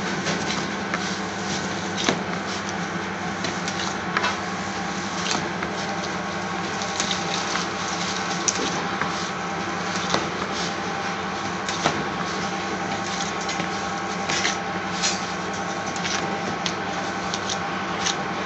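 A gloved hand kneading raw spiced lamb mince in a bowl, giving irregular wet squelches and slaps over a steady machine hum.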